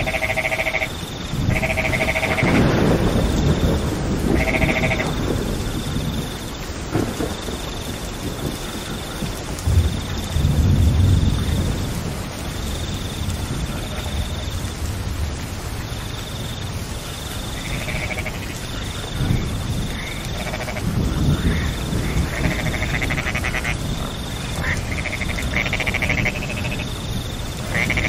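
Steady rain falling, with frogs calling: short repeated calls in clusters and a pulsing high note running on and off. A low rumble swells about ten seconds in.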